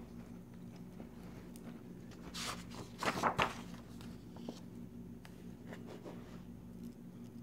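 Pages of a coloring book being turned by hand: two short papery rustles about two and a half and three seconds in, over a faint steady hum.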